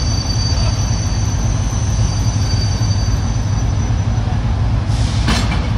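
China Railway diesel locomotive running with a steady low engine drone as it creeps up to the coach, with a thin high wheel or brake squeal that fades out about four seconds in. Near the end comes a brief hiss and a single sharp clank as it couples to the train.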